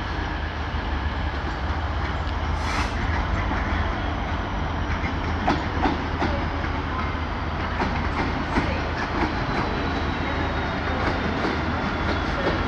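Class 66 diesel-electric freight locomotive running as it passes with its two-stroke V12 engine humming steadily. From about five seconds in, the wheels of the locomotive and its wagons click over rail joints and pointwork.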